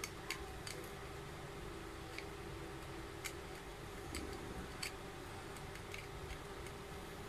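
Small, sharp plastic clicks at irregular intervals, about a dozen in all, as the clear plastic ring of a cylindrical ring maze puzzle is twisted and slid along its blue maze tube.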